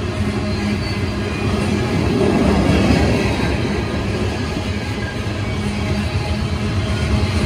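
Coal freight train rolling past: a steady, continuous sound of wheels and cars on the rails, growing a little louder near the middle.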